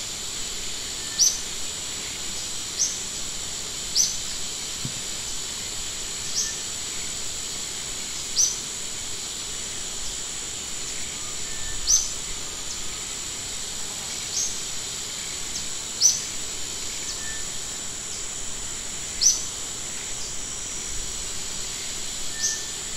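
A small bird repeats a short, high chirp that drops slightly in pitch, about every one to three seconds, over a steady high hiss.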